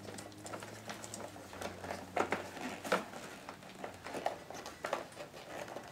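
Hands tucking wiring and plastic fuse holders into place on an ATV: scattered light clicks and rustles, with a couple of sharper clicks about two and three seconds in.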